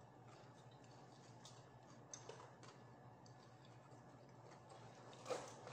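Quiet eating sounds: faint scattered clicks and mouth noises of someone chewing, with one louder mouth sound a little after five seconds in.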